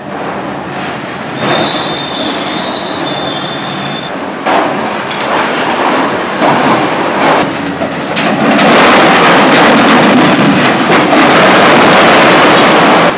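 A high-reach excavator's hydraulic demolition shear biting into and tearing a building's steel frame: metal screeching and grinding, with thin high squeals in the first few seconds and crackling and crunching throughout. It grows louder and denser from about eight seconds in.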